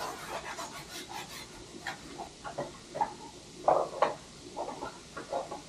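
Rag wiping grease off motorcycle parts: irregular rubbing and scraping strokes, with two louder ones about four seconds in.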